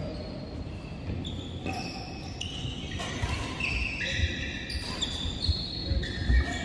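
Badminton rally on an indoor court: sports shoes squeaking on the court surface, sharp racket strikes on the shuttlecock, and players' feet thudding, the heaviest thuds near the end.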